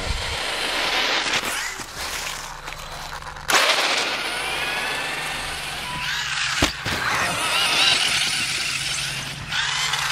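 Electric motors and gear drives of radio-controlled Axial crawler trucks whining as they rev up and down, with a hiss of tyres churning through snow and a sharp knock about two-thirds of the way through.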